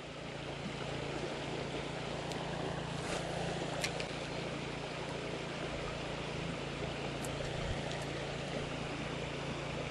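Steady rush of a shallow creek flowing over a rocky bed, with a faint steady low hum underneath and a few faint clicks.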